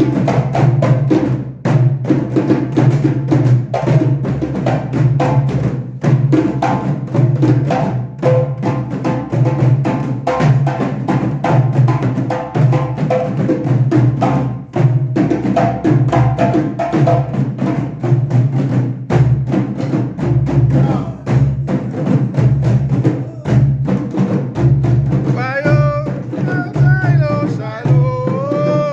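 Background music with a steady drum beat and heavy bass, with a singing voice coming in near the end.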